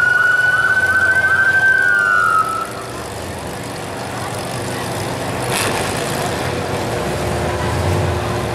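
A siren sounds in one long, slightly rising tone and cuts off about two and a half seconds in, the stop signal that goes with the red flags in a demolition derby. Derby car engines keep running under it and after it, with one sharp knock about halfway through.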